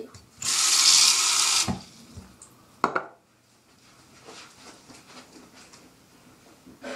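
Tap water running for about a second into a plastic bowl, then stopping, followed by a sharp knock about three seconds in.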